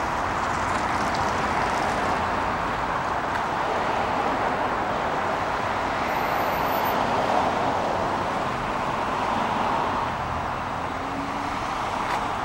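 Steady road traffic noise: a continuous wash of cars passing on a nearby street, swelling and easing slightly.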